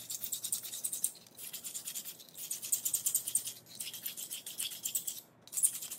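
A small file rasping in quick back-and-forth strokes over the freshly cut glass edge of a wine bottle neck, in several runs broken by brief pauses, smoothing the sharp rim into a bottleneck slide.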